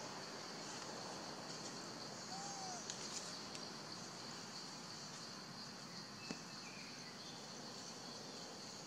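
Steady high-pitched drone of an insect chorus in the forest canopy, with a few faint clicks.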